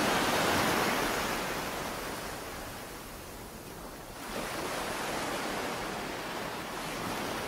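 Waves washing in at the shore, a steady rushing that eases off toward the middle and swells again a little past halfway.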